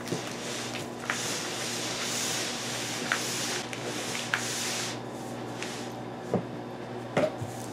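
Large cardboard carton holding a digital piano being pushed and slid over a carpeted floor: a rough scraping rub from about one to five seconds in, with several light knocks as it is shifted and set down.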